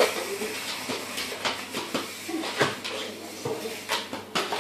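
Irish terrier puppy playing on bare wooden floorboards: irregular clicks and knocks of its claws scrabbling on the boards and a small toy skittering across them.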